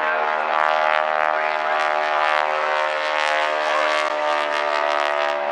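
Boeing Stearman biplane's radial engine and propeller, a steady drone at constant pitch as the plane flies by.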